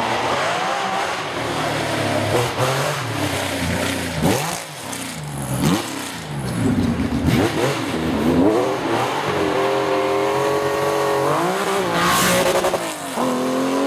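Rally car engines revving hard at stage speed, the pitch climbing and dropping sharply with each lift and gear change. Later a car holds a long, slowly rising engine note as it passes close by.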